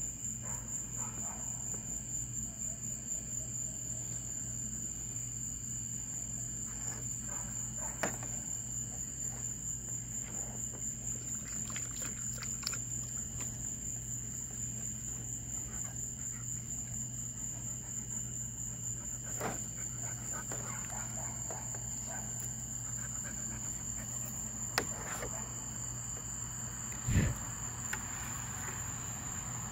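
Night insects chirping in a steady high-pitched chorus, with a low hum beneath. A few scattered soft knocks, and a louder thump near the end.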